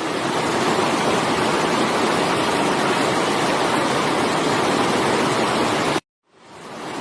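Steady rushing water noise, even and unbroken, that cuts off abruptly about six seconds in and fades back up a moment later, as at the seam of a looped track.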